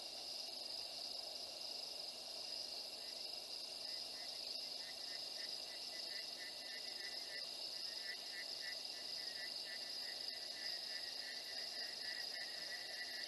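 Night insect chorus: crickets trilling steadily and high-pitched. About three seconds in, another insect joins with a rapid pulsed chirping that grows almost continuous near the end, over a low even hiss.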